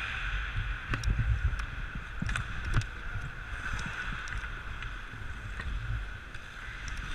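Ice skate blades scraping and carving on rink ice, with rumbling wind on a body-worn camera's microphone. A few sharp clacks of a hockey stick on the puck and ice, the loudest nearly three seconds in.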